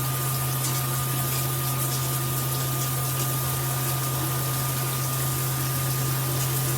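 Filtered shower head spraying water steadily at high pressure, a full hiss with a steady low hum underneath.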